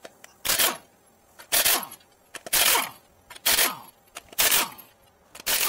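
Impact wrench with a 21 mm socket on the wheel's lug nuts: six short bursts about a second apart, each trailing off as the trigger is released, breaking the nuts loose.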